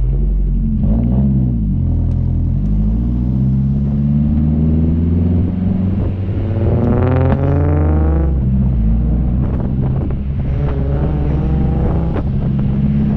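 Mazdaspeed3's turbocharged 2.3-litre four-cylinder engine under acceleration, heard loud from outside the car. The revs rise and fall several times, with one long climb that breaks off about eight seconds in, as at a gear change.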